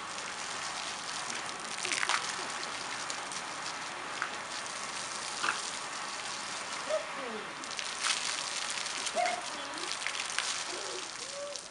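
Garden hose spray hissing and splattering on wet concrete as a dog plays in the stream, with louder bursts of splashing about 2, 5 and 8 seconds in.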